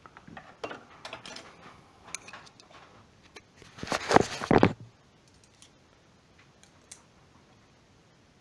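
Handling noise as the camera is moved by hand: small clicks and rustles, then a louder cluster of knocks and scraping lasting about a second midway, and a single click near the end.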